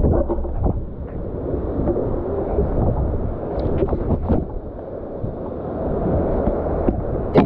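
Muffled rush of shallow surf and water sloshing, with wind rumble on the microphone and a few light knocks near the middle.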